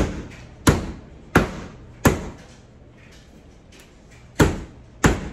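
A heavy dual-sided meat tenderizer pounding slices of elk roast on a wooden cutting board to tenderize the tough meat. Four thuds come about 0.7 s apart, then a pause of about two seconds, then two more thuds.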